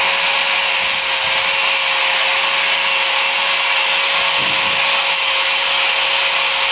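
Handheld electric angle grinder running at full speed and grinding a small piece of metal, a steady whine under an even grinding hiss.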